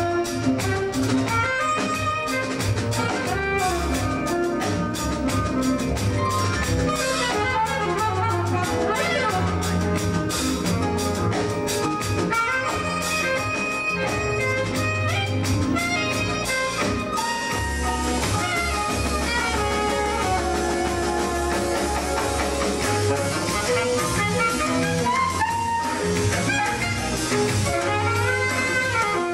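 Live jazz band playing, a saxophone carrying the lead line over drums and keyboards, with dense drum strikes that thin out about two-thirds of the way through.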